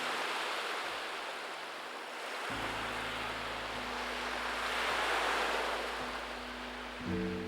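Ocean surf washing in, rushing louder at the start and swelling again about five seconds in. Soft sustained background music tones come in underneath about two and a half seconds in.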